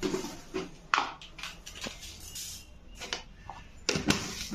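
Plastic lunch-box containers and a stainless-steel plate being handled on a kitchen counter: a few sharp clinks and knocks, two close together near the end, with light handling rustle between.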